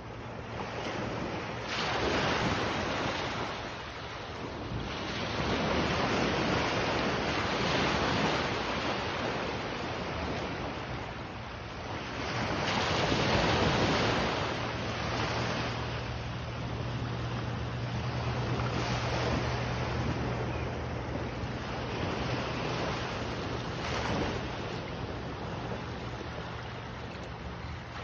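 Small waves breaking and washing up over shallow sand, the surf swelling and easing every few seconds, with wind buffeting the microphone.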